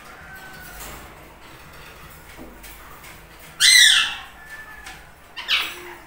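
Indian ringneck parrot giving one loud, harsh screech a little past halfway, then a shorter call near the end, with faint soft calls before.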